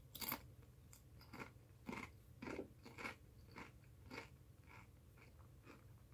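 Faint crunching of Doritos tortilla chips being chewed with the mouth, about two crunches a second, growing weaker after about four seconds.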